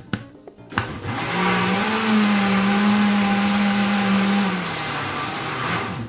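Countertop blender running for about five seconds in short-burst pulse mode, mixing cornmeal and wheat flour into a thin cake batter. The motor starts about a second in, runs at a steady pitch, then winds down near the end.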